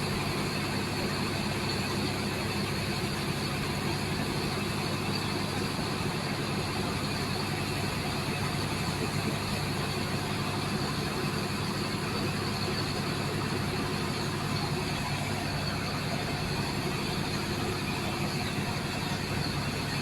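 An engine running steadily at an even pace, with a constant rushing noise over it.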